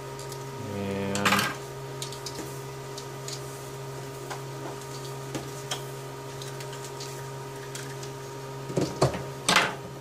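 Handling sounds on a wooden desk: a brief squeak ending in a sharp click about a second in, scattered light ticks, then a few loud knocks and rustling near the end as a coiled telephone cable is set down over the tool. A steady low hum runs underneath.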